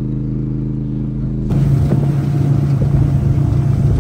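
A steady low engine hum, then about a second and a half in, a sudden change to a boat running under way: a louder, steady motor drone with a rush of wind and water over it.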